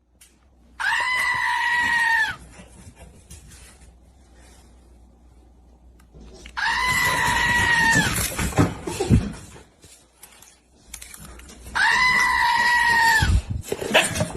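An animal giving three long, evenly pitched, bleat-like screams, each about a second and a half, spaced about five seconds apart. There are a few low thumps after the second and third.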